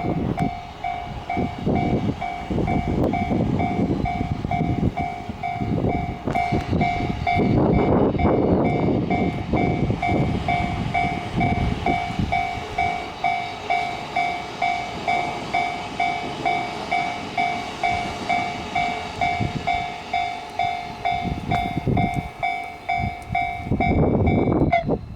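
Japanese level-crossing warning bell ringing in an even, rapid ding-ding, about two strikes a second, while a Tokaido Line train runs over the crossing. The rail noise is loudest about eight seconds in. The bell stops just before the end.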